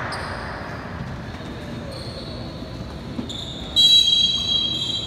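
A referee's whistle sounds sharply near the end as a loud, high, steady tone lasting about a second, echoing in a gym. Fainter high tones come before it.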